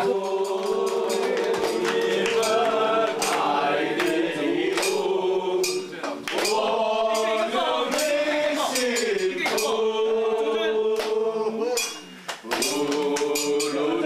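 A group of voices singing a song together in long held notes, with sharp percussive strikes keeping time.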